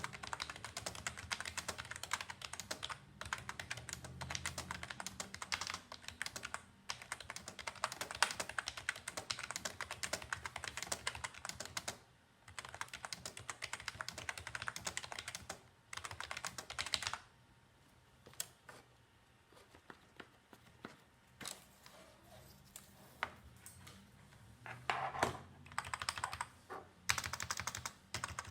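Logitech G213 Prodigy membrane gaming keyboard being typed on: fast, dense keystroke clatter for about the first twelve seconds, a brief pause, another quick run, then a stretch of slow, separate key presses before fast typing picks up again near the end.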